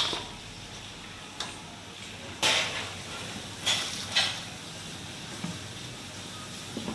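Hard fried mud crab shells being handled and turned over on a plate, giving four short clatters and scrapes against the plate, the loudest about two and a half seconds in, over a steady background hiss.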